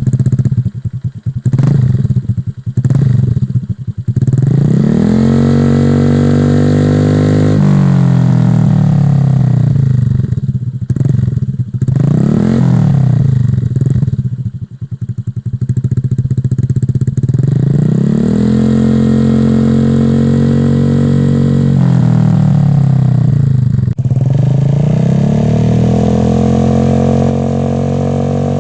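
Honda Vario 150 scooter's single-cylinder engine breathing through an aftermarket Daytona GP tapper exhaust, being revved: a few quick throttle blips at first, then the revs are raised and held high for a few seconds and let fall back, several times over.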